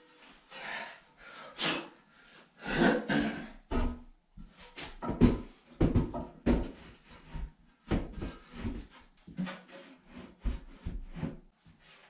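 Irregular knocks, clunks and short scrapes as a washbasin is handled and set onto a small vanity cabinet, about a dozen hard contacts spread unevenly.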